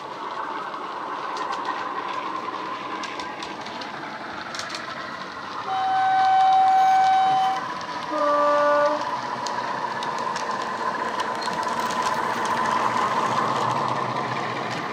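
Sound decoder in a Heljan Class 45 model locomotive, playing a Legomanbiffo Class 45 diesel sound file through an EM1 speaker. The engine runs steadily, and about six seconds in the two-tone horn sounds: a long higher note, then a shorter lower one. The engine sound grows louder near the end as the model passes close by.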